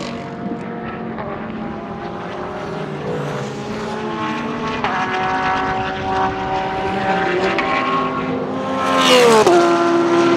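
Porsche 991.2 GT3 R race car's naturally aspirated flat-six running at speed on track, a loud engine note with several tones. It is loudest about nine seconds in, then drops sharply in pitch.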